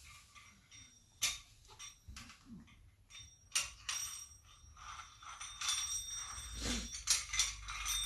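Parts of an electric heater being handled and fitted together: scattered clicks and knocks, more frequent in the second half.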